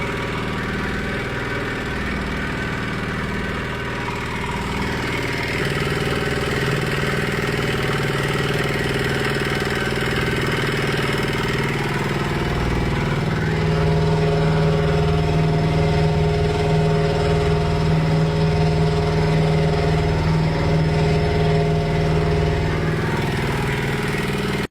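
A 200 kg livestock feed mixer running: a steady engine-driven mechanical drone that gets louder about six seconds in and again about halfway through, where its pitch shifts.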